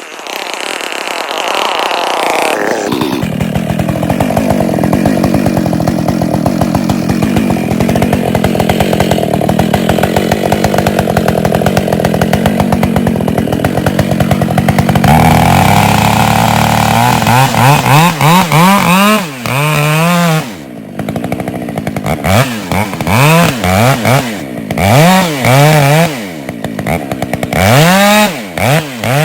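Husqvarna 572 XP two-stroke chainsaw revving up and running steadily at high speed. From about halfway, the revs rise and fall over and over as the throttle is opened and released.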